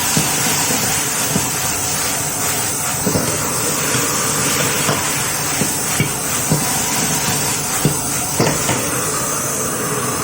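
Stir-fry of pork slices, pickled vegetables, dry bean curd and garlic leaves sizzling steadily in the pan after a splash of water, with the spatula knocking against the pan now and then.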